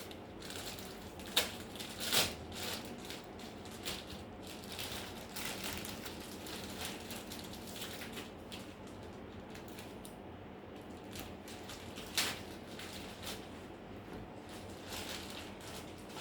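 Scattered small clicks and rustles of parts and tools being handled on a workbench, with sharper clicks about a second and a half, two seconds and twelve seconds in.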